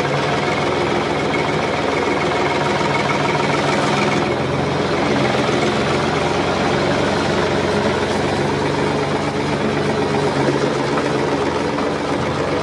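Engine running steadily, its tone changing about four seconds in.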